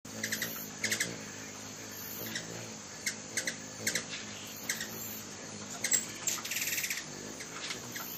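Hummingbirds giving short, high chip calls in quick clusters, with a buzzier chattering trill about six seconds in.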